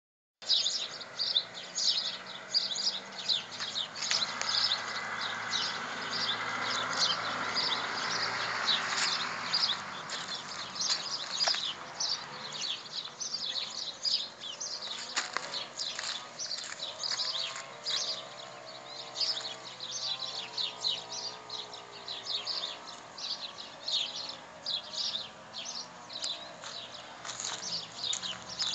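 Many small birds chirping at once: a dense chorus of quick, high, overlapping chirps.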